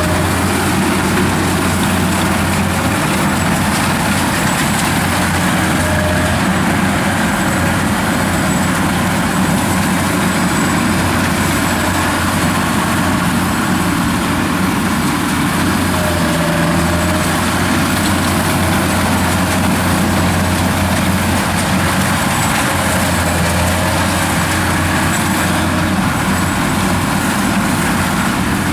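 Kubota DC-93 rice combine harvester running steadily, its diesel engine humming evenly under load as the machine works into the standing rice.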